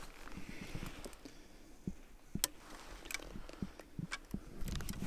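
Footsteps crunching slowly through dry grass and leaf litter, with irregular sharp clicks and twig snaps, one louder about halfway through.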